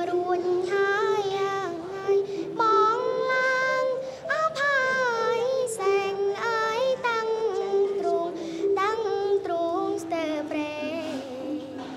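A young girl singing a melody alone, with held notes that bend and waver between short breaths.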